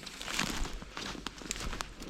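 Footsteps of a hiker in sneakers on snow-covered, mushy forest ground, a few irregular steps with small clicks and rustles.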